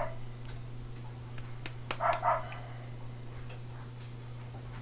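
A small dog barking in two quick runs of about three short yips each, one right at the start and one about two seconds in, over a steady low hum.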